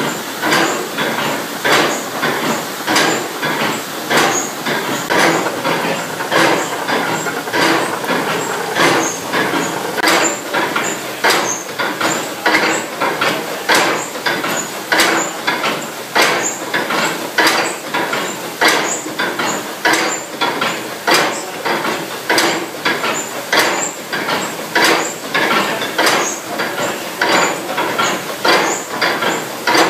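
Gold-ore stamper battery running, its cam-lifted iron stamps dropping in a steady, even rhythm of heavy impacts, with water washing through the mortar box between the strikes.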